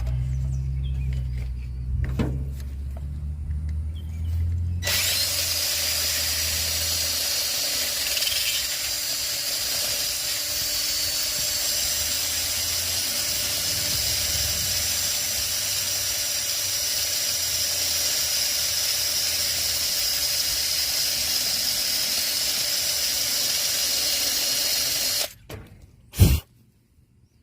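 Wire brush scouring rust off a battery cable's metal terminal plate, cleaning up a corroded, loose connection. A low motor hum runs for about five seconds, then a steady, harsh scouring runs for about twenty seconds and stops suddenly. One sharp knock follows near the end.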